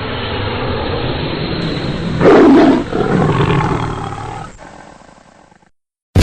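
A long animal-like roar, like a lion's, swelling up, loudest a little over two seconds in, then fading away. A sudden loud bang right at the end.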